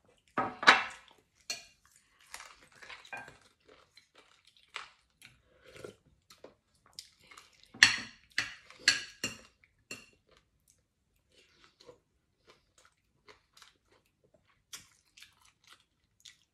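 Metal spoon clinking and scraping on a plate and in a pan during a meal, with chewing between. The sharpest clinks come in clusters about a second in and around eight seconds in, with lighter taps later.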